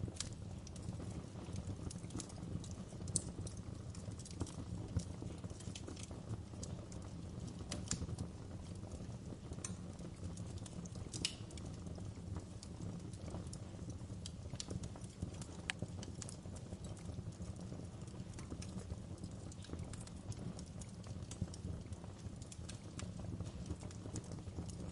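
Wood fire crackling in a fireplace: a steady low rumble of flames with irregular sharp pops and snaps from the burning logs.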